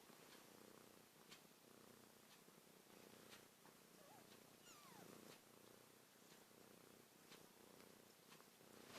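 Mother cat purring softly, a steady pulsing rumble, while nursing day-old kittens. A few faint, thin, falling squeaks come about halfway through.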